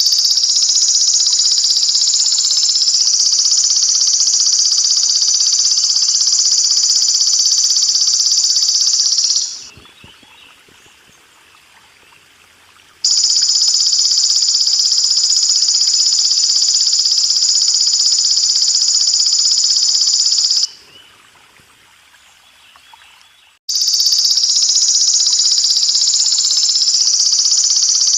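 Belalang emas insect calling: a loud, continuous high-pitched buzzing trill in long runs, broken twice by pauses of about three seconds, the second run starting suddenly. A faint steady hiss of running water sits underneath.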